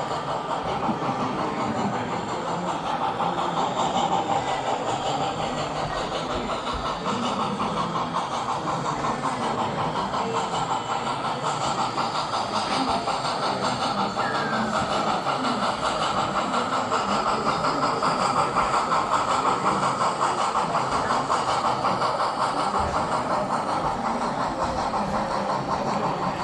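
Model train running along the layout's track: a steady running sound with fast, even clicking from the wheels on the rails.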